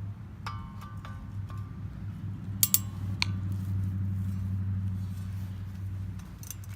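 Hand tools clinking and tapping against the steel of a machete and its handle rivets: a handful of light metallic clinks with a short ring, the sharpest pair about two and a half seconds in, over a steady low hum.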